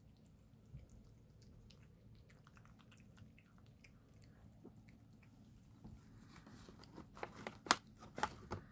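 Kittens chewing liver: faint scattered clicks of eating, which become louder and come in a quick cluster over the last couple of seconds.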